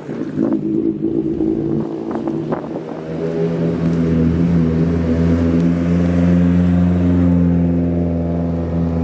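A car engine running at steady, low revs, its note holding nearly constant from about three seconds in, after a few short clicks at the start.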